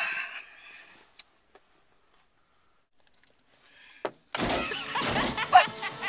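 A brief rustle, then a click about four seconds in, after which loud music with singing suddenly starts.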